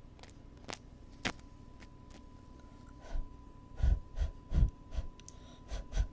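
Close ear-cleaning ASMR sounds on a binaural microphone's ear: two light clicks in the first second or so, then a run of rubbing and scraping strokes from about three seconds in, loudest around four to four and a half seconds.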